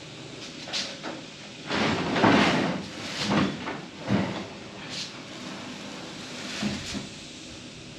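A series of irregular clunks and scraping knocks, like heavy parts being moved and handled. The loudest come about two to three and a half seconds in, with lighter knocks after.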